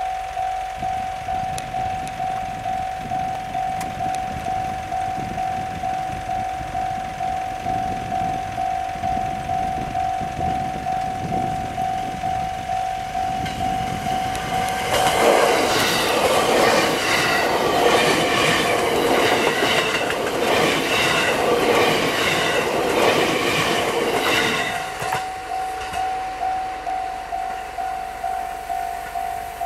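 Level-crossing warning bell ringing in a fast, even, repeating ding. About halfway through, the Kounotori limited express passes over the crossing, louder than the bell, its wheels clattering over the rail joints for about ten seconds. After it has gone the bell rings on alone.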